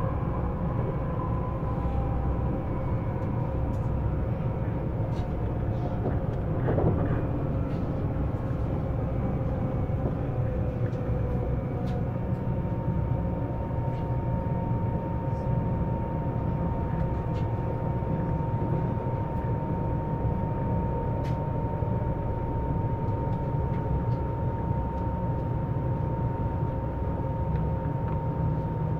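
Siemens Velaro E320 (Eurostar Class 374) IGBT traction inverter whining as the train brakes electrically on 1,500 V DC, heard on board over the steady rumble of the wheels on the rails. Its steady tones shift as it slows: one falls slightly at first, and a new steady tone sets in about twelve seconds in, with a brief surge about seven seconds in.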